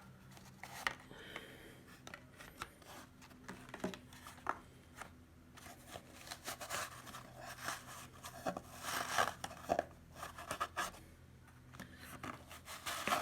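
Trading cards being worked out of a tight cardboard box by hand: irregular rustling, scraping and clicks of card stock sliding against cardboard, busier in the second half, over a faint steady low hum.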